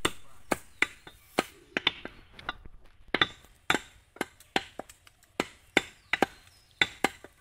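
Butcher's cleaver chopping beef on a wooden log chopping block: sharp, unevenly spaced chops about two to three a second.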